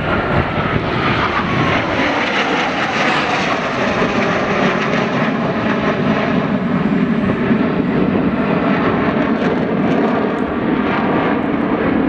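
Formation of four jet aircraft flying overhead, their engines giving a loud, steady jet noise. A high whine falls in pitch in the first second or so as they pass.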